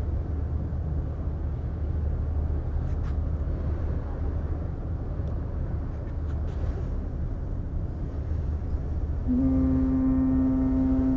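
Steady low rumble of a ferry underway, heard from on deck. About nine seconds in, a ship's horn sounds: one loud, steady low blast with many overtones that starts abruptly and is still held at the end.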